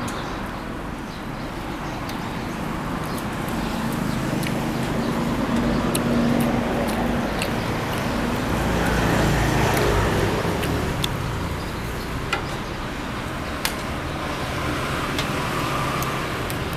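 Motor vehicle engine passing over a steady traffic hum, growing louder to a peak about nine to ten seconds in and then fading, with a few small sharp clicks near the end.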